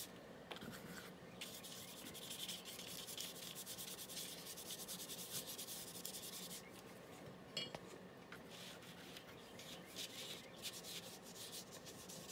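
Paintbrush scrubbing green and yellow paint onto paper in quick back-and-forth strokes, a faint steady scratchy rubbing, with a short pause and a small tap a little past halfway.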